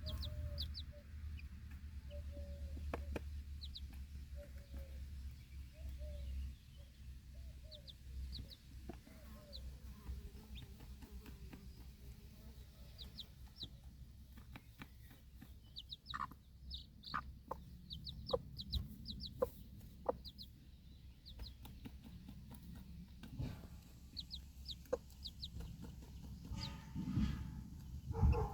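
Broody mother hen clucking in a run of low, short, repeated notes, with her baby chicks peeping in brief high chirps throughout. There is a louder burst near the end.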